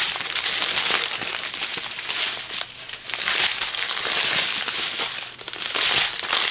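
Clear plastic bags of small diamond-painting drills crinkling and rustling as they are handled and turned over, in several bouts.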